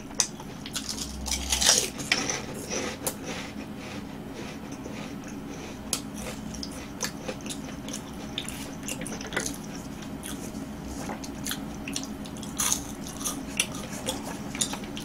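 Kkobuk Chip layered corn snacks being bitten and chewed close to the microphone: a burst of crisp crunches in the first two seconds, then quieter chewing with scattered crunches and another short cluster near the end.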